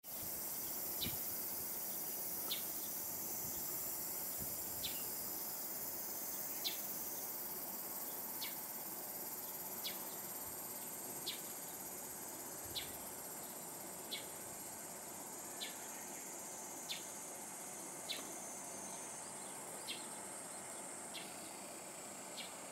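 Steady high-pitched insect chorus in summer greenery, with a short high chirp repeating about every second and a half.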